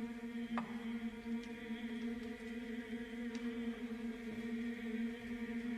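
Steady machine hum: one low, unchanging tone with overtones, with a faint click about half a second in.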